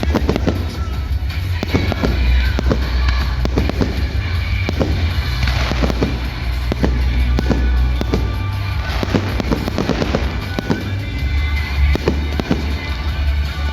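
Fireworks display: repeated shell bursts and bangs, many in quick succession, over loud music with a heavy bass playing along with the show.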